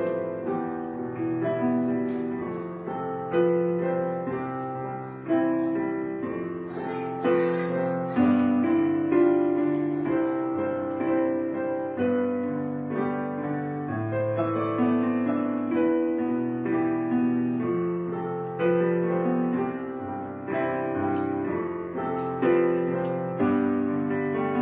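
Background piano music: slow, gentle notes and chords, each struck and left to fade.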